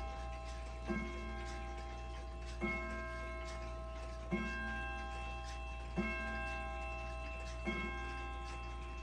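Howard Miller Sandringham wall clock striking the hour of seven: five of its evenly spaced hour strikes fall here, about 1.7 seconds apart, each a hammer blow that rings on and fades slowly, with the hammers freshly adjusted. Clock ticking runs faintly underneath.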